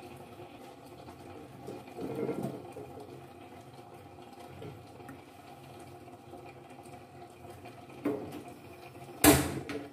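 Cooking oil poured into an empty metal pot, a short pour about two seconds in, over a steady low hum. A single sharp knock near the end, louder than the pour.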